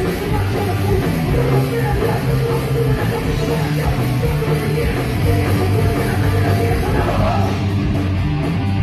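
Live rock band playing loud, with electric guitars, bass guitar and drum kit.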